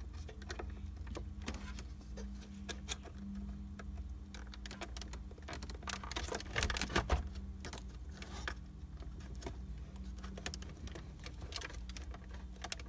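Irregular small plastic clicks and scrapes as a metal pick works at the locking tab of a wiring-harness connector behind the radio, busiest about six to seven seconds in, over a steady low hum.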